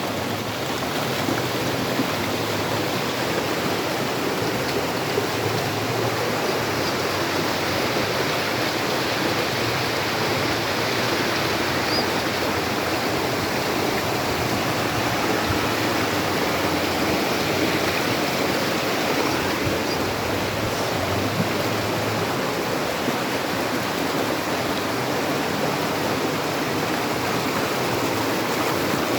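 Waterfall rushing, a steady, unbroken sound of falling water.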